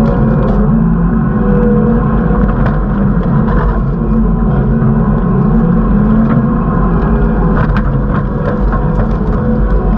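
Kubota SVL75 skid steer's diesel engine running steadily, with a few sharp knocks about three quarters of the way in.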